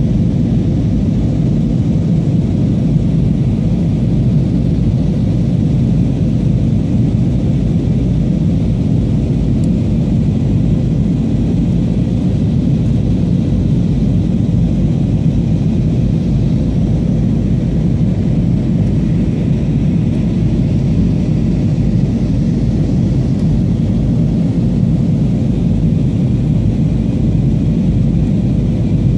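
Steady cabin noise inside an Airbus A320 in flight: a constant low rumble of jet engines and rushing air.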